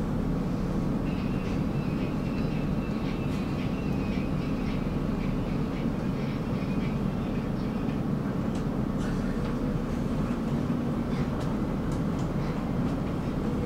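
Tram running along its track: a steady rumble of wheels on rails. A faint high whine comes in about a second in and fades out past the middle, with a few light clicks scattered through.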